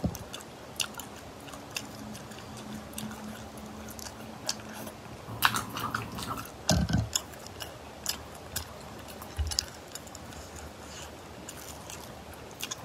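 Cooked snails in their shells clicking and knocking against each other and against fingers as they are handled and picked at, with chewing in between. A louder clatter comes about halfway through as a handful is taken from the pile.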